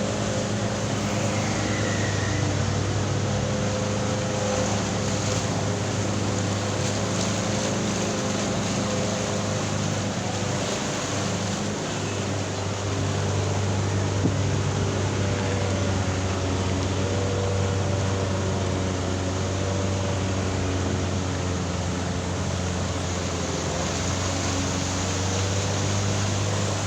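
A motor running steadily with a low hum, over an even rushing noise.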